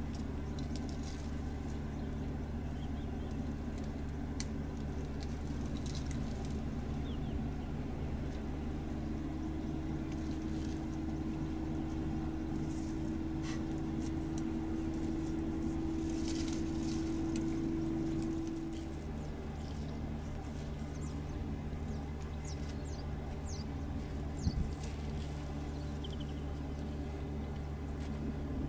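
Vehicle engine idling, a steady low hum, with a higher steady tone joining it for about ten seconds in the middle. Faint scattered crackles of leaves and twigs as an African elephant browses on a bush, and a single knock late on.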